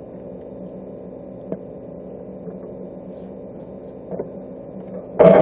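Steady electrical machine hum, with a couple of faint clicks, and a sudden loud noise just before the end.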